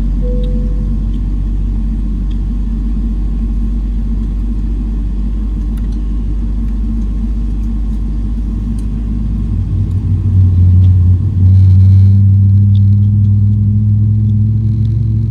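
Low, steady drone of a Boeing 777-300ER heard inside the cabin. About ten seconds in, a deep hum swells sharply and gets louder, and then a higher hum climbs slowly in pitch.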